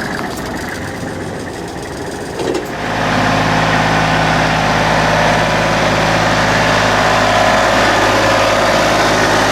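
Backhoe's diesel engine running at idle, then louder and steady from about three seconds in.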